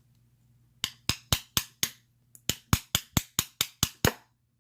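Rapid light taps of an improvised bump hammer striking a bump key seated in a Master Lock No. 3 padlock, about four taps a second in two runs with a short pause between. The lock has not yet given way.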